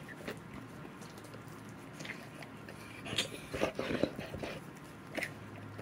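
A Labrador retriever mouthing and chewing on a toy whistle: scattered clicking bites, with a louder bout of mouthing about three seconds in. The whistle does not sound.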